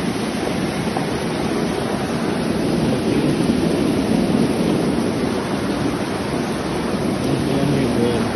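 Heavy downpour and floodwater rushing through a street, a loud steady noise with no breaks.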